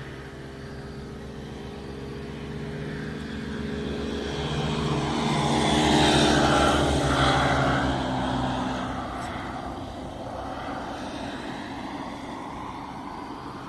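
A road vehicle passing: engine hum and tyre noise build over several seconds, peak about six seconds in, then fade away.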